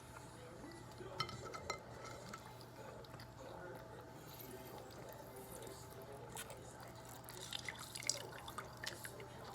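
Close-up wet mukbang eating sounds from a seafood boil: small sticky clicks, drips and smacks as saucy crab legs are picked apart and eaten, in a cluster about a second in and again near the end, over a steady low hum.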